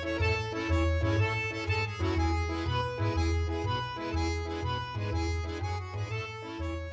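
Background music led by an accordion, with a steady bass pulse beneath it.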